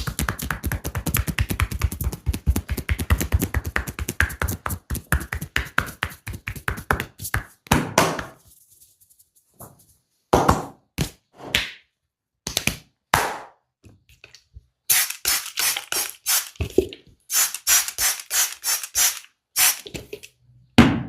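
Percussive massage strokes: fast rhythmic tapping on the body, then slower, separate slaps and strikes from about eight seconds in.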